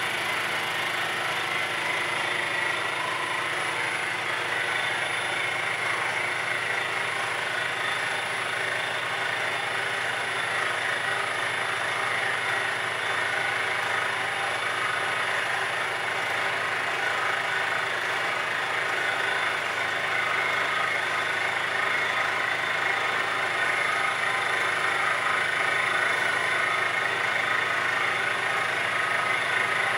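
Milling machine running steadily while a half-inch four-flute carbide end mill side-mills a cast iron lathe cross slide: a continuous cutting sound over the spindle drive's steady hum.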